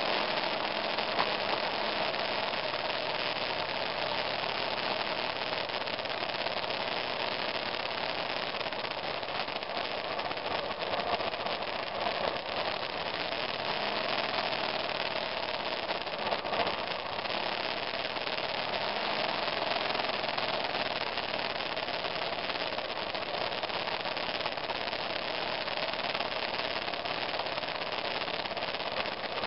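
A 2002 BMW F 650 GS Dakar's single-cylinder engine running steadily as the motorcycle rides along a dirt trail, heard close up under an even rushing noise.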